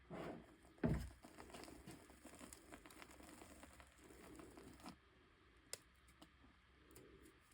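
Pieces of chalk snapped and crumbled by hand: one sharp snap about a second in, then soft crackling for a few seconds and a few faint pops near the end.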